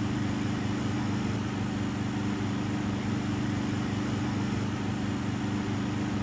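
Midea air conditioner running in the tent with a steady, even hum.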